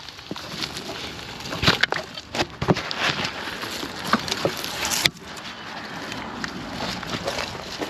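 Irregular clicks, knocks and scraping of tools at a water shutoff valve as it is worked open. A louder scrape builds and cuts off suddenly about five seconds in.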